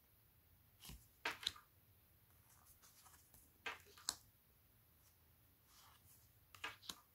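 Oracle cards being slid one by one off a hand-held deck, each card making a quick papery slide and tap; three of these, each a pair of short strokes, about three seconds apart.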